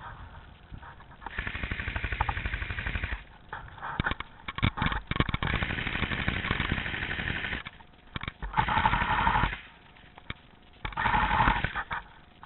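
Airsoft guns firing on full auto in four bursts of about one to three seconds each, each a rapid rattle of shots, with short pauses between.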